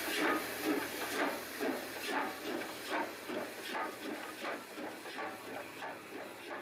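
Steam locomotive exhaust chuffing in a steady rhythm, each beat a hiss of steam, the beats quickening slightly and slowly fading as the engine draws away. A sound effect laid over silent film, not the filmed engine's own sound.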